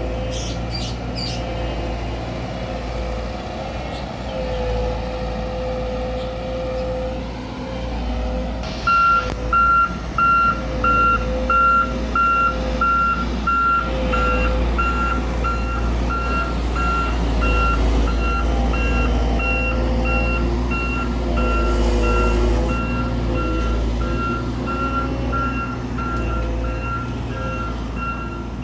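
Diesel engine of heavy construction machinery running steadily, its pitch wavering slightly. About a third of the way in a reversing alarm starts, a single high beep repeating a little over once a second, which signals that the machine is travelling in reverse.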